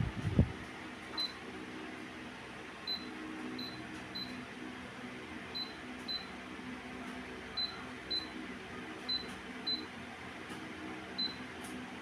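Touch control panel of an Oberhof Atembrise NL-42 pedestal fan beeping as its buttons are pressed: eleven short high beeps, several in quick pairs, over the faint steady hum of the running fan motor.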